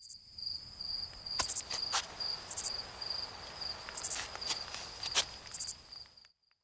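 Woodland insect chorus: a steady, rapidly pulsing high chirp with louder buzzing insect calls every second or so, and a few sharp crackling snaps. It all cuts off abruptly about six seconds in.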